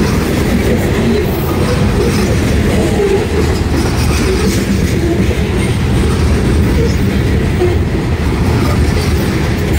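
Loaded covered hopper cars of a freight grain train rolling past close at speed: a loud, steady rumble of steel wheels on the rails.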